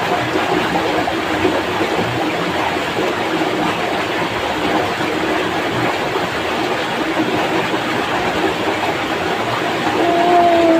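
Fast, shallow stream rushing over rocks, a steady even rush of water. A short steady tone sounds briefly near the end.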